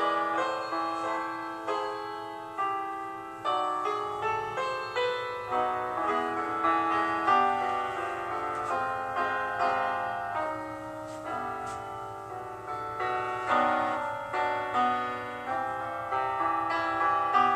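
Piano music: a continuous flow of struck notes and chords, each fading after it is played.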